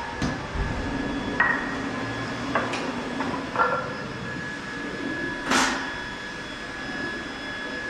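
About six sharp knocks and clanks over a steady high-pitched whine, with a low hum under the first half that stops about three and a half seconds in; the loudest knock comes about five and a half seconds in.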